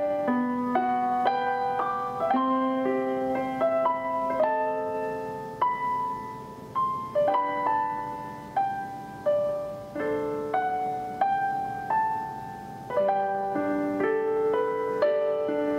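Background piano music, its notes struck and left to ring, thinning to single notes in the middle before fuller chords return near the end.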